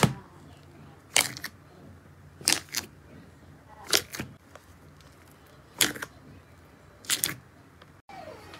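Slime being pressed and squeezed in the hands, giving six short crackly squelches, about one every second and a half.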